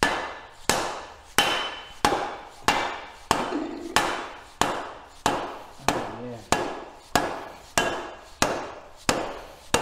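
Dead blow hammer tapping steadily on a log splitter's hydraulic cylinder, about one and a half knocks a second with a short metallic ring after each, driving the piston and rod back into the bore where the new seals make it go in tight.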